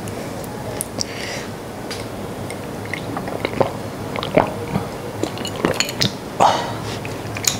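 Ice cubes clinking in a glass of iced tea as it is lifted and drunk, with scattered small clicks and knocks of glass and ice.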